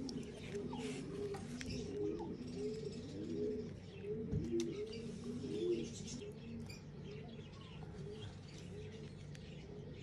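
Several pigeons cooing, their coos overlapping and busiest in the first six seconds, then thinning out.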